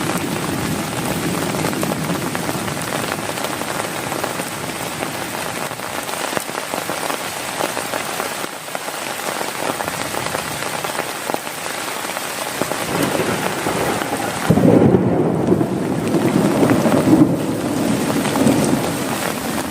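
Heavy rain falling steadily on a tent, with a rumble of thunder breaking in suddenly about three-quarters of the way through and rolling on for several seconds.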